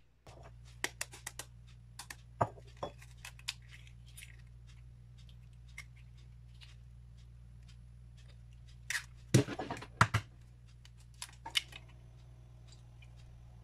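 Eggs being cracked and separated by hand: eggshell tapping and crackling, with the shell halves clicking against each other as the yolk is passed between them. The two loudest sharp knocks come about a second apart, just past the middle. A steady low hum runs underneath.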